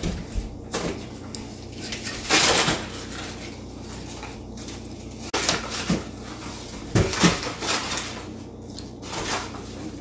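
Cardboard and foil of a homemade toy vacuum cleaner being handled: irregular scraping, rustling and knocking in short bursts as its box section is pulled apart from the handle body, the loudest around two and a half seconds in and again about seven seconds in.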